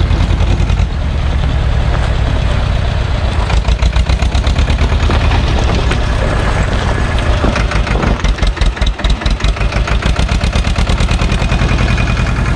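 Same tractor's diesel engine running as it pulls a trailer loaded with river stones over gravel, a steady low chugging beat; about eight seconds in the beat slows and each firing stands out for a second or two before it picks up again.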